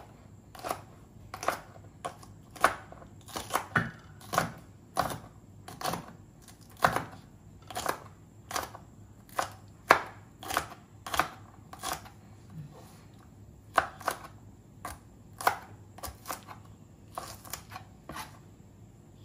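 Cleaver chopping a bunch of French beans crosswise on a plastic cutting board: a long, uneven run of sharp knocks, somewhat under two a second.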